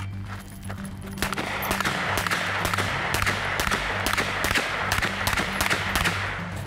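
Glock 17 9 mm pistol firing a fast string of shots, about three a second, starting about a second in and stopping shortly before the end, with the reports echoing across the range.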